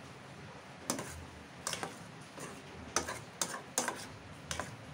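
A metal utensil clinking and scraping against the side of a metal saucepan as instant noodles and their seasoning are stirred: about eight irregular sharp clicks, some in quick pairs.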